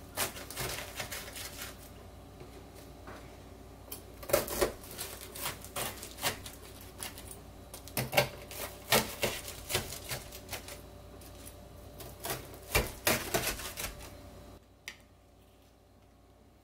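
Chef's knife cutting through crisp fried shrimp toast on a wooden cutting board: several bursts of crunchy, crackling cuts as the crust breaks under the blade. Near the end there is a single light tap.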